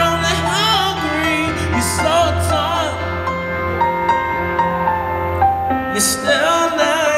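Live slow rock ballad: a male lead singer sings with a wavering vibrato over sustained keyboard chords and bass. The voice drops out about three seconds in while the keyboard holds its notes, and the singing comes back near the end.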